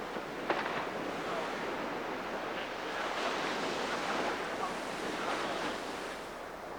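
Waves washing on a shoreline with wind noise, steady throughout, and a short click about half a second in.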